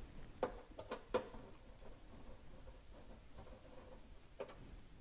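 Faint metallic clicks and taps of a Phillips screwdriver working M4 screws into a steel VESA mount plate, the screws being started loosely and not yet snugged down. A handful of clicks come close together in the first second or so, and one more near the end.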